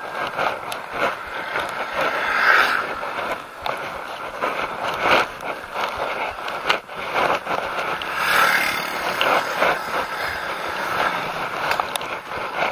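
Bicycle riding along a rough, cracked asphalt road: steady tyre and rolling noise with the frame rattling, broken by irregular clicks and knocks as it goes over bumps.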